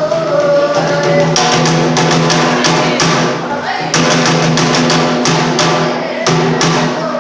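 Bitchū kagura accompaniment: a run of drum strokes, several a second, over a steady low held tone.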